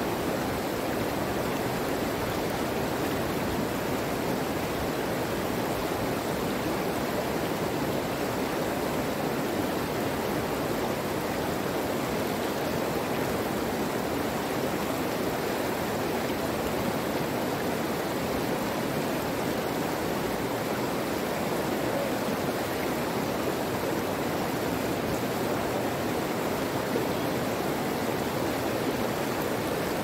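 Running water, a steady, even rush with no breaks or single splashes.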